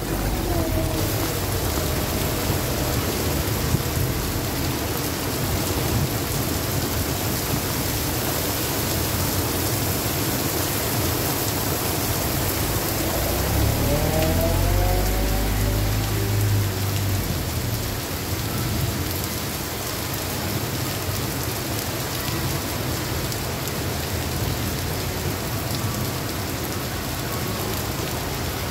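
Heavy rain pouring onto a flooded street, a steady hiss of rain on pavement and standing water. Around the middle a car passes close by through the water, with a low rumble that swells and fades.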